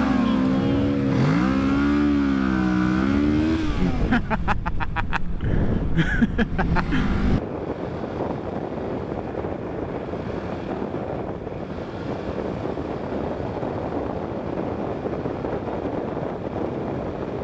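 Motorcycle engine revving, its pitch rising and falling, then a few seconds of rapid pulsing. About seven seconds in the sound changes suddenly to a steady rush of wind and engine noise while riding at speed.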